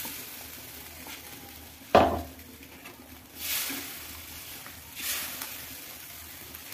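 A metal ladle stirring thin urad dal batter in an iron kadhai, over a faint steady sizzle. About two seconds in the ladle gives one sharp clank against the pan, followed by two short scraping strokes.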